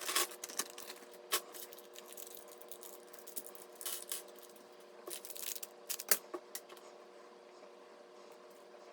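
Hands handling computer parts and packaging: scattered light clicks, taps and rustles, thinning out near the end, over a steady faint hum.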